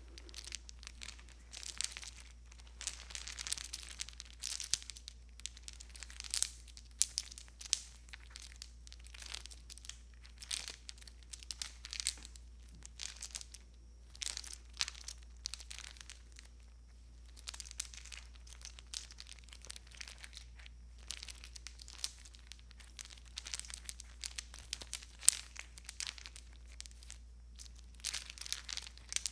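Foley of Christmas tree lights being strung: the light string's wire and bulbs rustle and click in irregular bursts, with short pauses between handlings.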